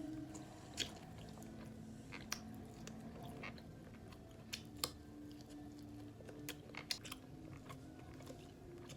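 Close-miked chewing and biting of a person eating, with scattered sharp mouth clicks and crunches.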